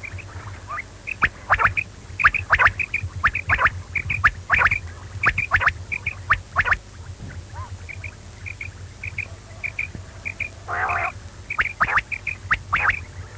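Quail calling: short, sharp notes repeated in quick runs, with a longer, harsher call about eleven seconds in, over a steady low hum.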